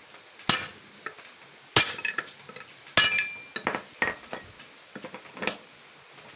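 Hammer blows on a steel axle used as a drift, driving a seized 6203 wheel bearing out of a Hero Splendor Plus rear wheel hub. Three hard, ringing metallic strikes, each about a second and a quarter apart, then several lighter taps.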